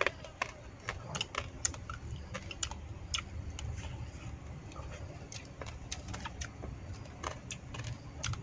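Close-up eating sounds: irregular sharp clicks and smacks of chewing and chopsticks against a bowl, several a second, over a steady low rumble.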